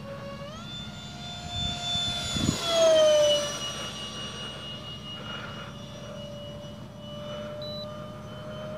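Electric ducted fans of a Dynam Me262 RC jet whining steadily. The pitch steps up about half a second in as the throttle opens. The model passes overhead about three seconds in, at its loudest, and the whine falls sharply in pitch as it goes by, then carries on steady as the jet flies away.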